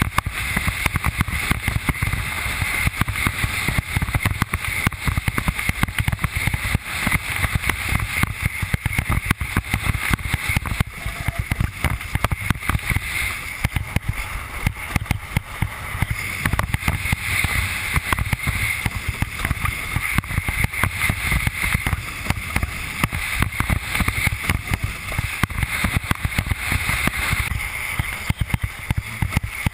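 Windsurf board sailing fast over choppy water, with wind rushing over the camera microphone and spray hissing. Rapid, irregular slaps and knocks as the hull skips across the chop.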